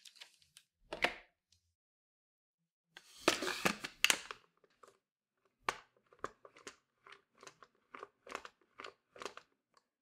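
Plastic parts of a Dyson V15 Detect soft roller cleaner head being handled during reassembly. There is a knock, then a scraping slide about three seconds in, then a run of about ten light clicks, two or three a second, as the end cap is worked.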